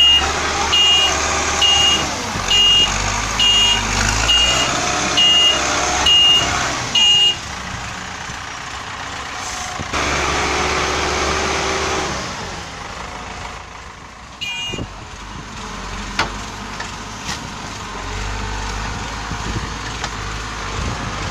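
Backhoe loader's diesel engine running while its reversing alarm beeps about once a second for the first seven seconds. The engine revs louder for a couple of seconds about ten seconds in, and the alarm beeps once more a few seconds later.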